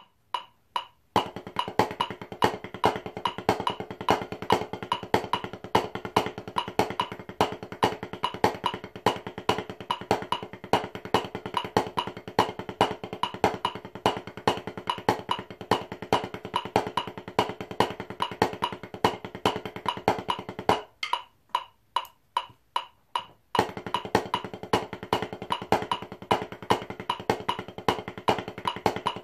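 Drumsticks playing a fast, even run of sixteenth-note strokes on a practice pad: a sticking exercise of paradiddle-diddles and paradiddles. About two-thirds of the way through, the run drops to a few separate strokes for a couple of seconds, then picks up again.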